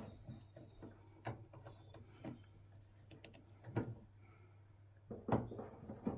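Scattered light clicks and knocks of small metal parts being handled as a ball-joint end fitting is screwed by hand into a gas bonnet strut, with a few sharper knocks near the end, over a faint steady hum.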